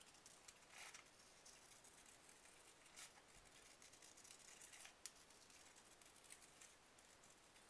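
Scissors faintly snipping through thin white card, cutting out a circle in a scattered series of short, irregular snips.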